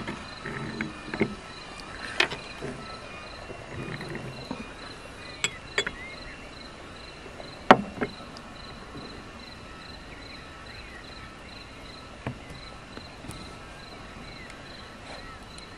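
Cricket chirping steadily, about two or three chirps a second. Now and then a sharp clink of a glass tea cup or spoon against a saucer, the loudest about halfway through.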